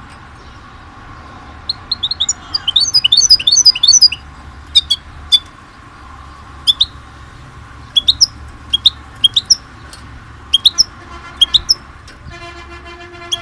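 A small songbird chirping in short sharp calls, with a quick run of chirps a couple of seconds in and then single and paired chirps spaced about a second apart. Near the end a buzzy horn-like tone comes in and holds.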